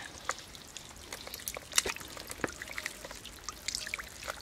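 Hands squelching and splashing through wet mud and shallow muddy water: an irregular string of wet splats, drips and trickles.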